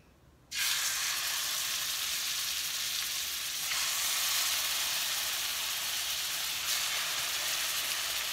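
Raw chicken breasts sizzling as they go into a hot pan of melted butter and vegetable oil. The sizzle starts suddenly about half a second in and grows a little stronger a few seconds later as another piece is laid in, then holds steady.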